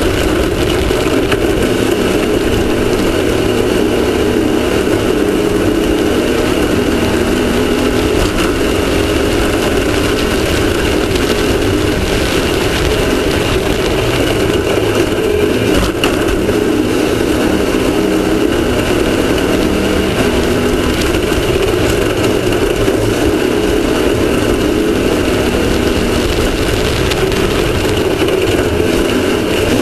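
Off-road desert race vehicle's engine running steadily at speed, heard from a front-mounted onboard camera under a steady rush of wind and terrain noise, with a brief knock about halfway through.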